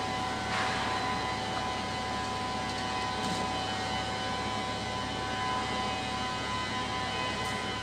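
Volvo L60F wheel loader's diesel engine running steadily, with a constant high whine over the engine noise.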